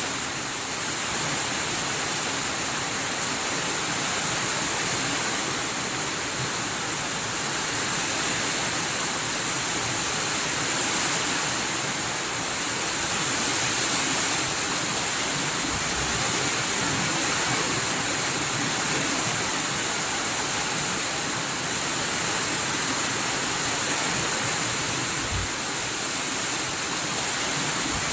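Rain falling steadily, an even hiss without a break, with two brief low bumps about sixteen seconds in and again near the end.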